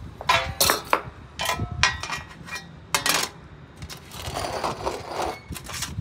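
Stainless steel feeding tray and cup being handled and set down on stone paving: several sharp metal clanks with brief ringing in the first three seconds, then a rattling scrape.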